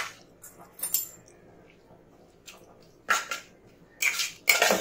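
Hand mixing wet grated beetroot, mashed tomato and chopped herbs in a stainless steel bowl: short wet squishing and rustling strokes, a single stroke about a second in and several in quick succession near the end.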